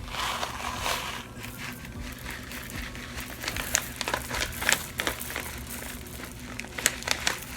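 Wax polymer beads poured from a crinkling plastic bag onto slime: a rustle of the bag at first, then many scattered sharp ticks as the beads fall.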